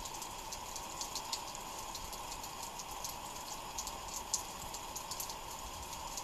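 Outdoor ambience: a steady faint hum with irregular light ticks and clicks, several a second.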